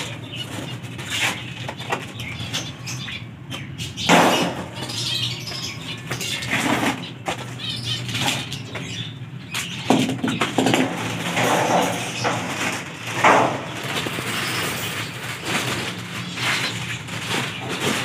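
Foil-lined plastic packaging sheet crinkling and rustling as it is handled and cut open around a new wire cage, in irregular bursts, with louder crackles about four, ten and thirteen seconds in.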